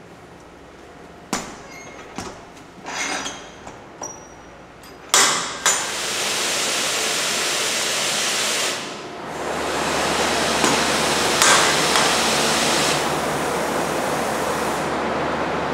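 Metal clanks and knocks from a stainless steel cooking chamber and its loaded sausage rack, with a loud bang about five seconds in as the chamber door is shut. A steady loud rushing hiss follows, and a low hum joins in about nine seconds in.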